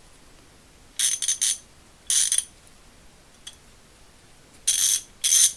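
A freshly reassembled MacWork 100-tooth 1/2-inch drive ratchet being swung back and forth, its pawl clicking fast over the fine teeth in four short buzzing bursts: a function check after reassembly.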